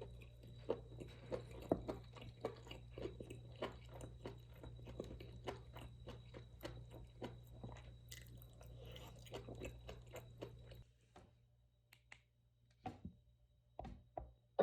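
Someone eating close to the microphone with a wooden spoon: repeated chewing with small clicks. A steady low hum underneath stops about eleven seconds in, leaving only a few scattered clicks.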